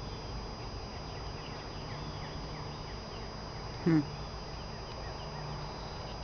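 Honey bees buzzing steadily around an opened hive. About four seconds in comes one brief, louder vocal sound from a person.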